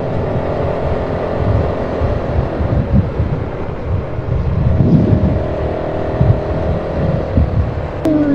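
Off-road vehicle engine running steadily as it climbs a bumpy trail, its pitch drifting gently up and down, over a constant low rumble and jolts from the rough ground. A sharp click comes near the end.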